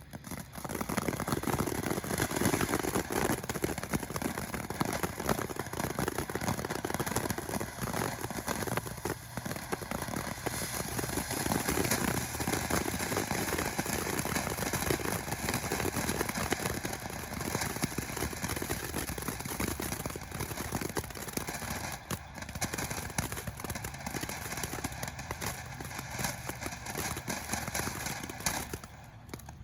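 Small firework fountain burning, a steady rushing hiss with crackling as it throws out showers of sparks. It stops near the end as the fountain burns out.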